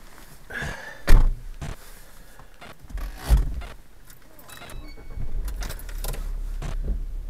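Car door slammed shut about a second in, another thump a couple of seconds later, and keys jangling. About five seconds in the car's engine starts and settles into a steady idle.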